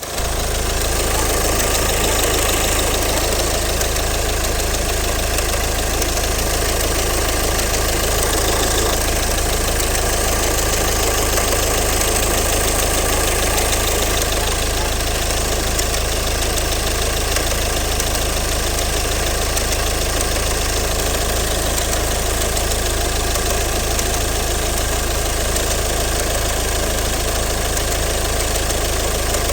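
Ford 2.0 TDCi Duratorq four-cylinder diesel (136 PS) running steadily at idle with a knock, which the owner puts down to a stretched chain between the camshafts.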